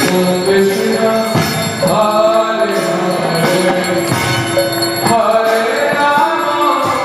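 Devotional temple kirtan: voices singing a drawn-out melody, with hand cymbals and bells ringing along.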